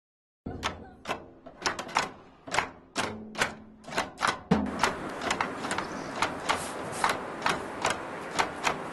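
Sharp clacks that start suddenly about half a second in. They come unevenly at first, then settle into a steady beat of about two a second over a constant background hiss.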